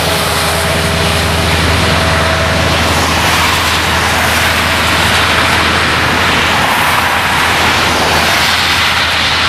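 Scania V8 truck running on a wet motorway: steady hiss of tyres and spray on the wet road over the low, steady drone of its open-piped V8.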